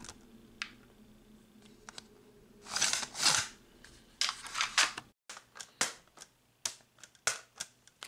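Plastic 3D-printed magnet stamps clicking and tapping against a magnetic drawing board and against each other as they are handled. Two scraping swishes come about three seconds in, and a quick run of clicks follows near the end.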